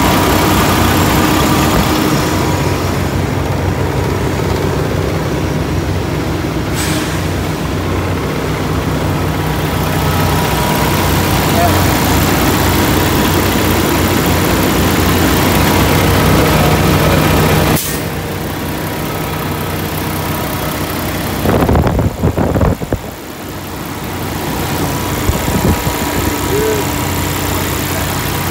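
Semi truck's diesel engine idling, heard close up in the open engine bay: a steady running noise that drops somewhat in level about eighteen seconds in. A brief rustle of handling noise comes around twenty-two seconds in.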